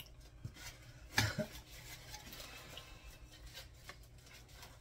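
Hands rubbing a dry spice rub onto raw chicken pieces in a bowl: soft, quiet rubbing and handling noises, with one sharper knock about a second in.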